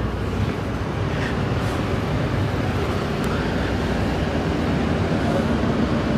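Steady vehicle hum inside the cabin of a Volvo 9600 sleeper coach, even and unbroken.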